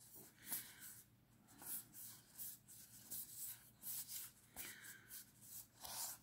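Faint, irregular swishes and flicks of tarot cards sliding against one another as a deck is fanned and leafed through by hand.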